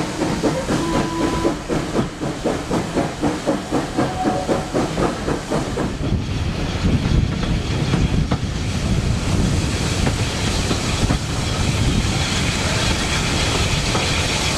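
Steam locomotive chuffing with an even beat of about three exhaust puffs a second. About six seconds in, the beat gives way to the steadier rumble and clatter of the carriages running on the rails.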